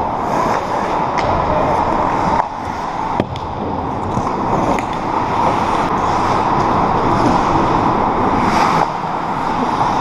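Ice hockey play on an indoor rink: skates scraping on the ice over a steady noisy background, with a few sharp clacks of sticks and puck.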